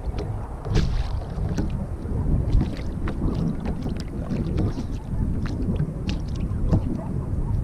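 Wind buffeting the microphone with a steady low rumble, over lapping water and scattered small clicks and knocks.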